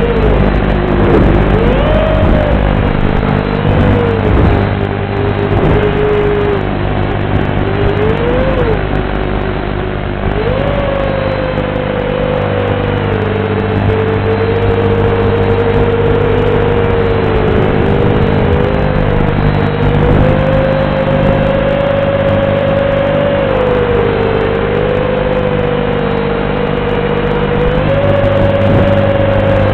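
FPV quadcopter's brushless motors and propellers whining, picked up by the FT48X video transmitter's built-in microphone on the drone itself. The pitch rises and falls as the throttle changes, with a steady hum underneath and a dull, narrow-band tone from the transmitter's audio channel.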